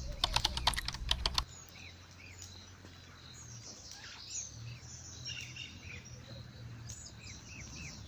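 A rapid run of about ten sharp clicks in the first second and a half, then small birds chirping repeatedly in the background.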